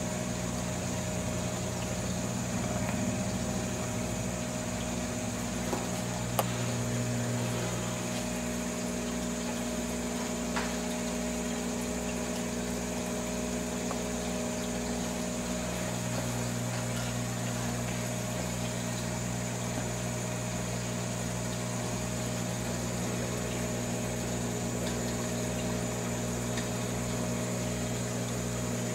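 Aquarium pump running with a steady low hum over a faint watery hiss, with a single faint click about six seconds in.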